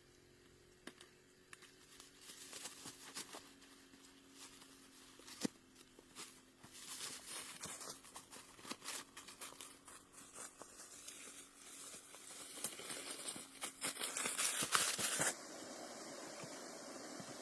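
Crinkling and rustling with scattered sharp clicks, growing busier and louder, then giving way to a steady hiss about fifteen seconds in.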